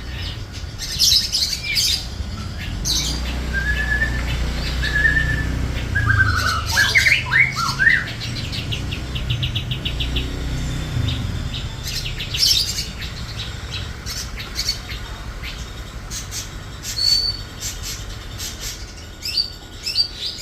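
Long-tailed shrike (cendet) singing a varied, busy song of harsh squawks, short chirps, whistled notes and a fast rattling trill, mixing in mimicked calls of other birds such as the Eurasian tree sparrow and lorikeet. A low rumble runs beneath it.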